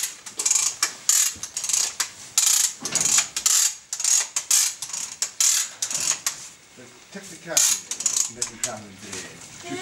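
Calving jack ratcheting: a run of sharp metallic clicks, about three a second, as its handle is pumped to draw the calf out of the cow.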